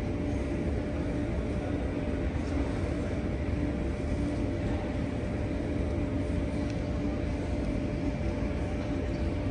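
Steady airport gate ambience heard through the terminal window: a constant low rumble with a faint steady hum from the parked airliner and ground equipment, without change.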